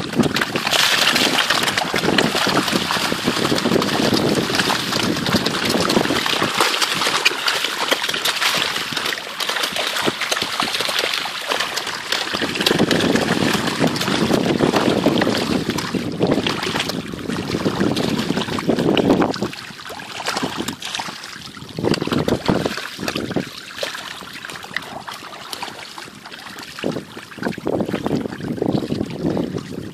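A dense crowd of young snakehead fish thrashing and splashing at the water surface while feeding, a continuous churning splash. It eases off about two-thirds of the way through into quieter, broken spells of splashing.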